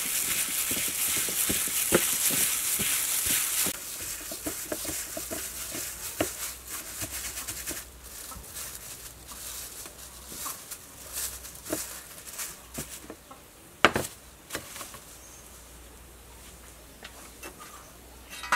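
Plastic-gloved hand kneading minced pork with seasonings in a bowl: a dense crinkling and squelching for the first few seconds, then fainter scattered clicks and taps of handling, with one sharp knock about 14 seconds in.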